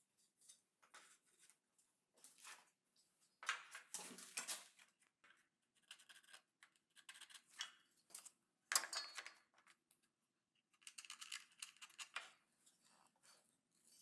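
Quiet, irregular scraping and rustling from hand work on wood, with a few short sharp sounds; the sharpest comes a little past the middle.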